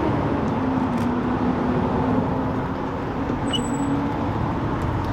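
A motor vehicle engine running steadily with a low hum, over a wash of road traffic noise.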